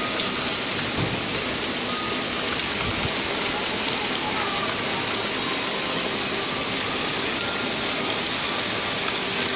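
Heavy rain falling, a steady hiss with no breaks.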